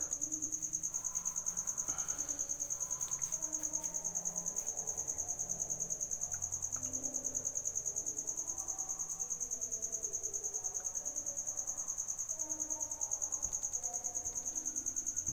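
A cricket chirping steadily: a high-pitched, rapidly pulsing trill, with a faint murmur lower down.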